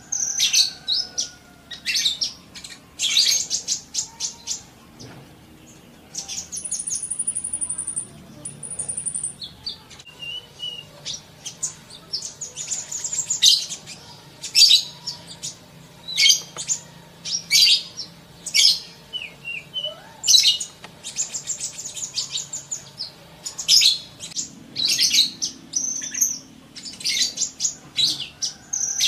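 Sunbird (Indonesian 'kolibri') song played as a training recording: rapid, very high chirps and twittering trills in quick repeated bursts. Two thin, very high held whistles come about a quarter of the way in.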